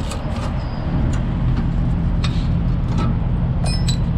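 Steady low hum of an idling truck engine. Over it, a few short metallic clicks and a brief clink near the end, from a wrench working a stubborn mud-flap bolt.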